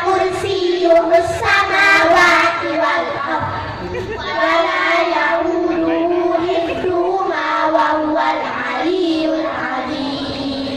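A group of children chanting together in unison into microphones, with long held, wavering notes.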